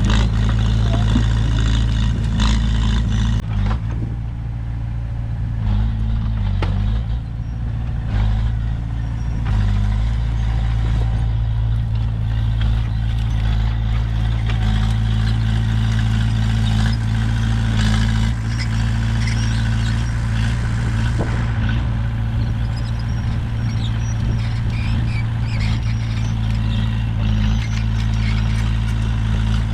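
Komatsu bulldozer's diesel engine running steadily under work, with a few metallic clanks and a brief easing of the engine note several seconds in.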